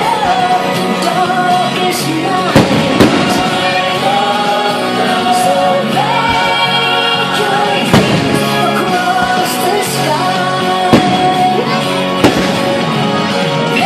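Loud music with singing, cut by sharp firework bangs about five times, the bangs standing out as the loudest moments.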